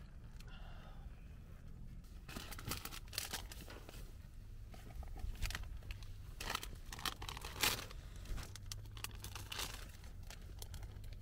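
Plastic snack wrapper being crinkled and torn open by hand: a run of crackles, loudest about three-quarters of the way through.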